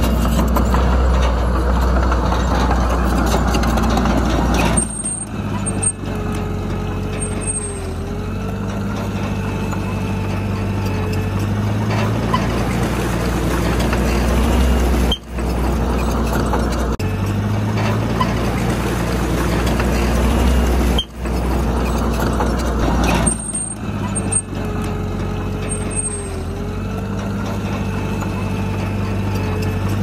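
Diesel engine of a Komatsu D31PX crawler bulldozer running under working load, its note shifting up and down as it pushes fill. The sound breaks off abruptly a few times.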